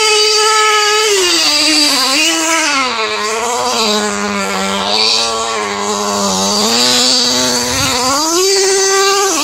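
Small nitro (glow-fuel two-stroke) engine of a rear-wheel-drive RC car running. It starts high, drops toward idle about a second in and blips up briefly. It then settles low for several seconds before revving back up near the end.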